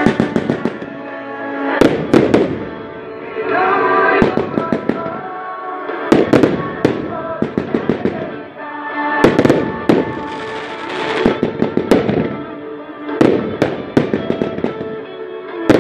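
Fireworks: rockets and aerial shells launching and bursting in volleys of sharp bangs and crackles, a cluster every two to three seconds, over music playing throughout.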